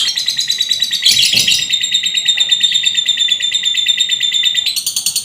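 A songbird singing a rapid, machine-gun-like trill of high, sharp notes, many a second: the 'tembakan AK-47' gunfire song used as masteran for lovebirds. The trill changes its pattern about a second in and again near the end.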